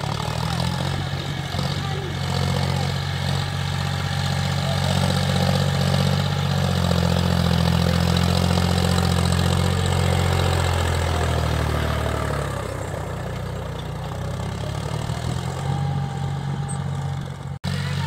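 John Deere 5045 D tractor's three-cylinder diesel engine running steadily while pulling a cultivator through wet ground. It grows louder through the middle as the tractor comes close, then eases off, with a brief dropout near the end.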